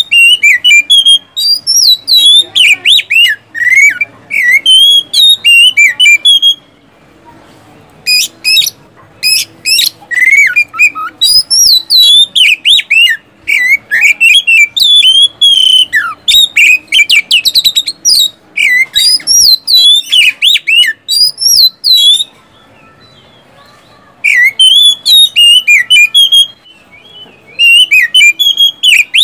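Oriental magpie-robin (kacer) singing loudly in rapid whistled phrases of sweeping notes mixed with sharp staccato bursts. The song breaks off briefly about seven seconds in and again a little past twenty seconds.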